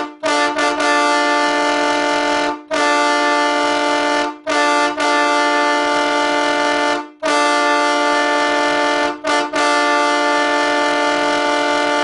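Wolo Siberian Express Chrome three-trumpet air train horn sounding a run of loud blasts of about two seconds each, broken by brief gaps and a few short toots. Each blast is one steady chord of several tones.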